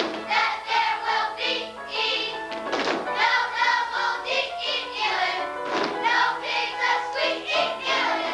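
A group of children singing a song together over musical accompaniment, with sharp accented hits about every three seconds.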